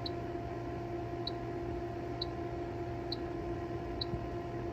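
Electronic refrigerant leak detector ticking slowly, about once a second, at its baseline rate, over a steady low electrical hum. The slow rate shows the probe is not picking up refrigerant at this spot.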